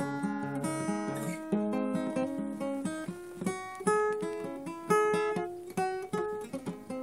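Acoustic guitar music: a quick run of plucked notes and chords, with no singing.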